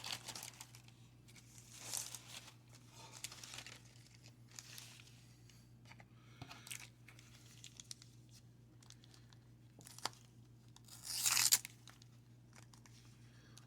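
Wax paper wrapper of a 1990 Donruss baseball card pack being torn open and crinkled, in scattered bursts with the loudest about eleven seconds in.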